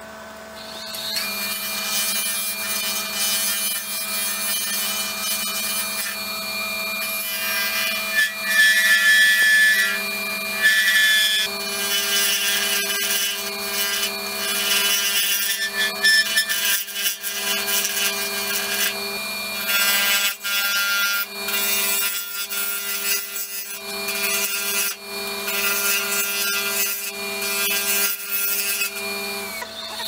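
Lathe running with a carbide insert tool cutting a spinning epoxy-resin blank set with ammunition casings: a steady hissing scrape as resin shavings peel off, over the motor's even whine. The cut starts about a second in and breaks off briefly a few times as the tool lifts from the work.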